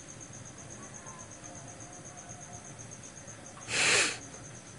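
Crickets chirping steadily in a high-pitched pulse, about five pulses a second. About four seconds in, a loud half-second burst of hissing noise briefly covers them.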